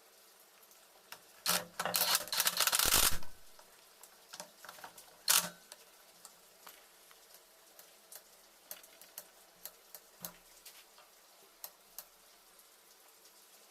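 Clicking and rattling of hand tools and small metal parts being handled: a dense clatter lasting about a second and a half near the start, a sharp click a couple of seconds later, then scattered light ticks.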